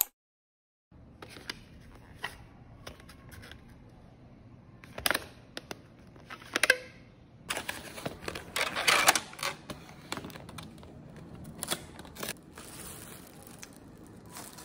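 A clear plastic takeout tray and its lid being handled and opened: scattered clicks and crackling of plastic, loudest in a run about eight to nine seconds in.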